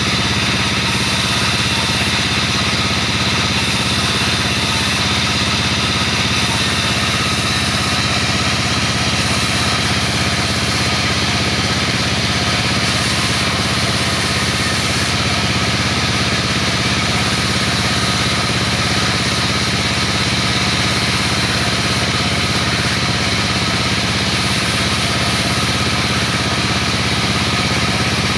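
Sawmill machinery running steadily: a constant engine drone with several steady tones and no separate cuts or impacts.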